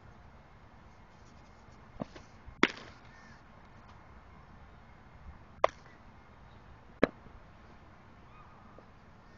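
Sharp pops of a baseball smacking into a leather glove: three loud ones, the last two about a second and a half apart, with a fainter click just before the first.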